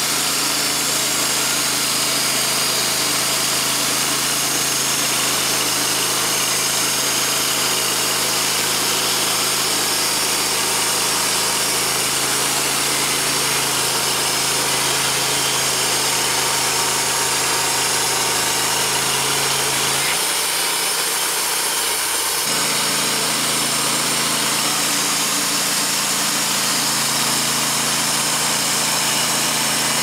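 Wood-Mizer hydraulic portable bandsaw mill running steadily, its engine humming under the hiss of the band blade cutting through a red oak log. The low engine hum briefly drops away about twenty seconds in.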